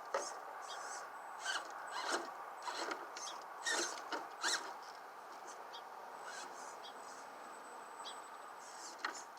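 Radio-controlled rock crawler running: a steady whine from its electric motor and geared drivetrain, with irregular clicks and scrapes, heaviest in the first half.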